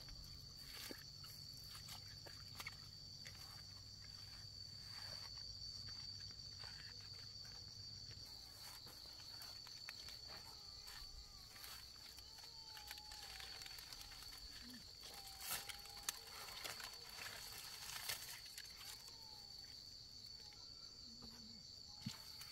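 A steady, high-pitched insect drone runs throughout. Scattered rustles and snaps of stiff pineapple leaves being brushed and handled come over it.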